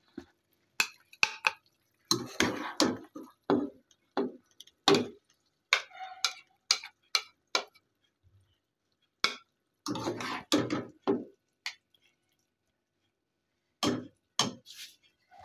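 Slotted nylon spatula scraping and knocking against a nonstick wok as cooked potato slices are scooped out and served onto a plate: an irregular run of short knocks and scrapes with brief silences between.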